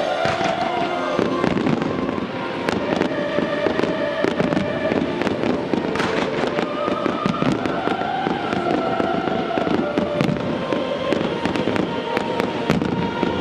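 Fireworks going off in quick succession: a dense run of sharp cracks and bangs from bursting shells, with music playing underneath.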